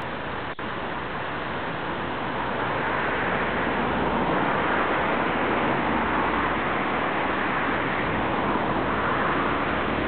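Steady rushing outdoor background noise with no distinct calls, growing a little louder about three seconds in, broken by a brief dropout about half a second in.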